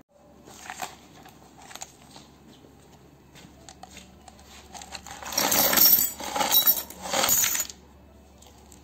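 Small steel springs, screws and other metal parts tipped from a clear plastic tub into a bucket of scrap hardware, clattering and jingling. A few light clinks come first, then two loud pours about five and seven seconds in.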